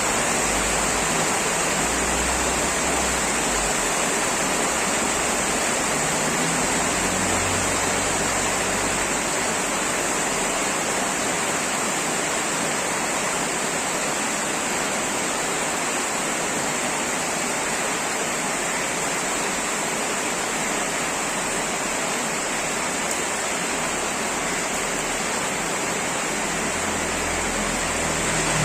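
Heavy rain pouring down steadily, a dense, even hiss of downpour with no let-up.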